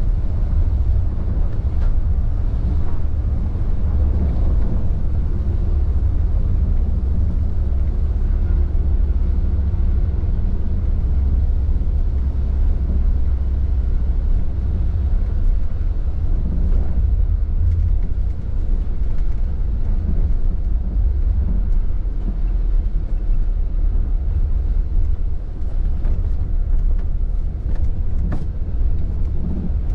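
Inside a long-distance coach driving on a rain-soaked highway: a steady deep rumble of the engine and tyres, with the hiss of rain and road spray over it.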